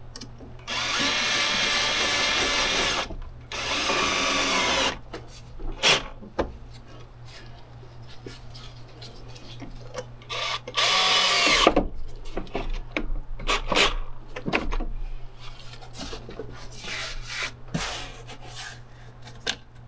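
DeWalt cordless drill/driver running in short bursts, tightening the hose clamps: two runs of a couple of seconds near the start and a shorter one about eleven seconds in. Clicks and knocks of the tool and parts being handled come between the runs.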